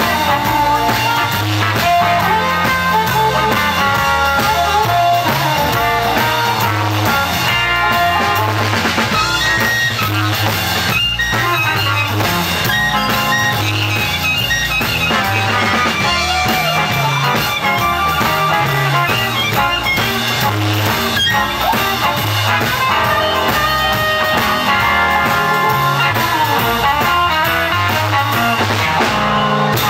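Live electric blues band playing a 1950s-style blues: harmonica cupped to a microphone wailing with bent notes over electric guitars, a steady bass line and a drum kit.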